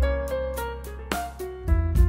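Instrumental background music: held melody notes over a steady bass line, with a light, even beat.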